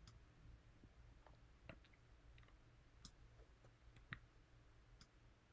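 Near silence with about five faint, separate computer mouse clicks spread irregularly over a few seconds, over a low steady hum.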